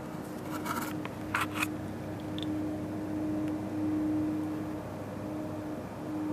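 A steady, unexplained low hum, holding one pitch over a low rumbling haze. A few sharp clicks and rustles come about half a second to a second and a half in, from the camera being handled.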